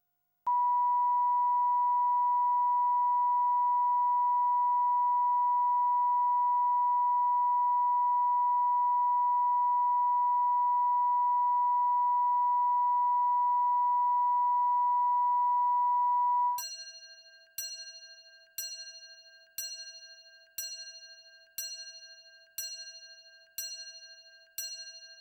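A steady electronic test tone near 1 kHz, held unchanged for about sixteen seconds, then a run of about nine chime-like ticks once a second, each ringing briefly and dying away, like a countdown leader.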